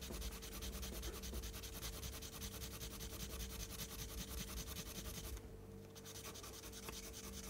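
Fast back-and-forth rubbing strokes as a small RC car suspension part is smoothed by hand to take off excess material and polish it, pausing briefly about five and a half seconds in.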